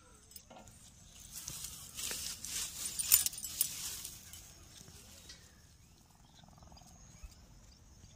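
Leaves and stems of tomato plants rustling and crackling as the plants are pushed aside and the small tomatoes picked, with a few sharp snaps. It is loudest for about three seconds in the middle, then fades back to a low hiss.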